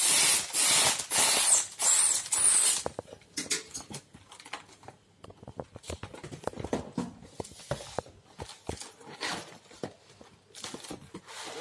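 Compressed air hissing in several short bursts from an inflation nozzle as it fills a plastic air-column cushion bag, for about the first three seconds. After that, irregular crinkling and crackling of the inflated plastic film as it is handled and a laptop is slid into it.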